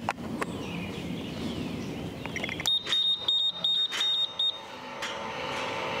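A couple of button clicks, then a quick run of high electronic beeps from the Ghost Controls gate opener's keypad as the remote transmitter is paired with it. About five seconds in, the gate operator's motor starts with a steady hum as the gate begins to move.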